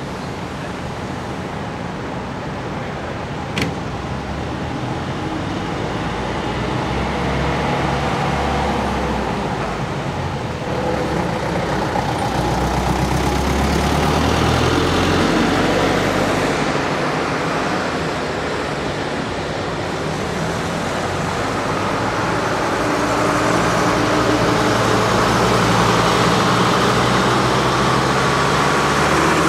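Vintage Setra Kässbohrer buses driving slowly past one after another, their diesel engines running. The engine sound swells as one bus passes about halfway through, and again as another pulls away near the end. A single short click comes about three and a half seconds in.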